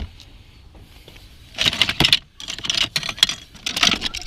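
Jingling and clinking of small metal objects, like a ring of keys, in rapid clusters starting about a second and a half in, over a low vehicle rumble.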